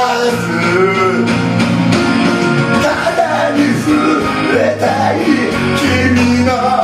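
A man singing into a microphone over a karaoke backing track, his voice held and gliding through long sung notes.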